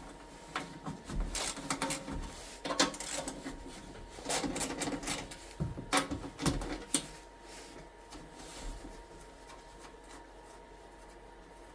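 Hand work on the underside of a snow blower: an irregular run of metal clanks, rattles and scraping for about seven seconds, then only faint shuffling.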